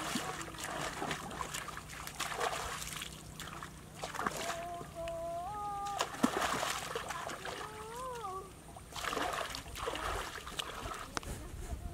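Hands and a fishing net splashing and sloshing in shallow muddy water, in repeated short splashes with trickling between them. A faint pitched call sounds twice in the middle.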